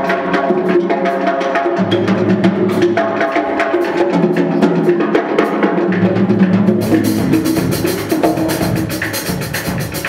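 Percussion ensemble performing: held pitched notes over struck drums and woodblock-like clicks in a running rhythm. About seven seconds in, the playing shifts to denser, brighter strokes.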